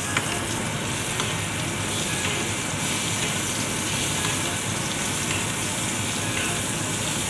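Ribeye steak frying in butter with garlic and thyme, sizzling steadily as the hot butter is spooned over it.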